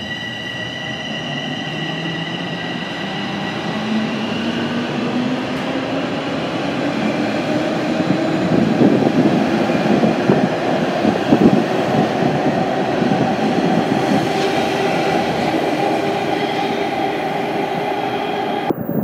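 Bombardier Toronto Rocket subway train pulling out of the station: its traction motors whine, rising steadily in pitch as it picks up speed, over the rumble of the passing cars, which is loudest about halfway through. The sound cuts off suddenly near the end.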